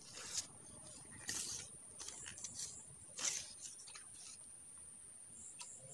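A few short, soft rustles and scuffs, four or five of them, over a steady high-pitched insect whine.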